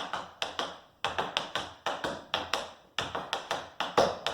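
Tap shoes on a hard floor dancing tap time steps: quick clusters of sharp metal taps in a repeating rhythm, with brief pauses about a second in and again near three seconds.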